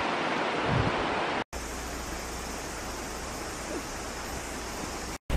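Steady rushing of a waterfall and the river below it. It cuts out for an instant about a second and a half in, then a second steady rush with a low rumble underneath carries on until another brief dropout near the end.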